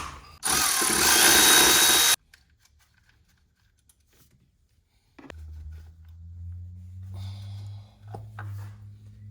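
A handheld power tool runs in one loud burst of just under two seconds, shortly after a sharp click, on the 10 mm bolts that hold the ignition coils in. From about halfway through, a steady low hum sets in.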